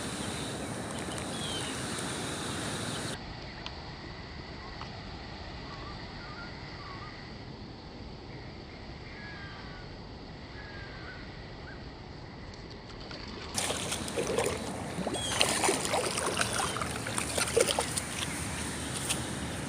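Creek water sloshing and splashing, with a quieter middle stretch where a few faint bird chirps come through; the splashing turns louder and more broken in the last few seconds.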